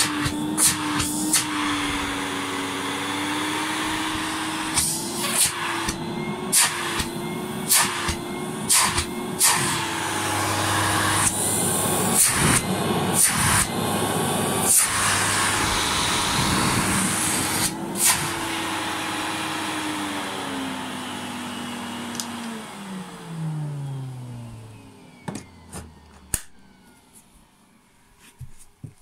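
Zelmer Cobra 2000 Plus canister vacuum cleaner running with a steady motor whine, with many sharp knocks and taps throughout. About twenty seconds in it is switched off and the motor winds down, its pitch falling slowly and then steeply. A few knocks follow near the end.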